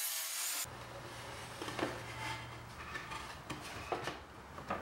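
A hiss of sawing that cuts off abruptly under a second in, then scattered light knocks, clicks and rubbing as a thin plywood drawer bottom is worked into a wooden drawer box, over a faint low hum for the first couple of seconds.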